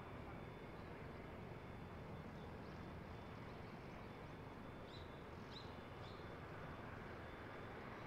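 Faint, steady rumble of a Cessna Citation V's twin turbofan engines at taxi power, with a thin high whine held on one note. A few short bird chirps come about five to six seconds in.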